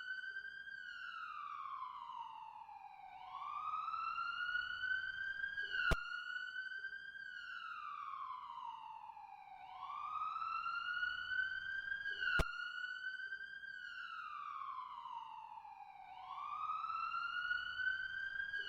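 Siren wailing slowly, its pitch falling over a few seconds and then swooping back up, about once every six and a half seconds. A sharp click sounds at the top of each cycle.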